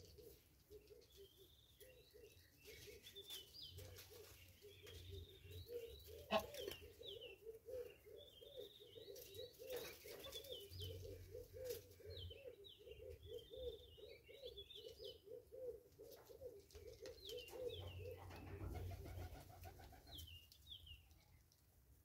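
Faint bird sounds: small birds chirping high and quick, over a long run of low, evenly repeated call notes, about three a second, that die away after about eighteen seconds. One sharp click about six seconds in.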